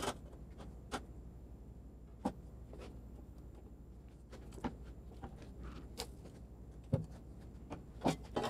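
Scattered light clanks and taps of a sheet-metal part being positioned and bent in a manual sheet-metal bending brake, roughly one a second, the heaviest knock about seven seconds in, over a faint low hum.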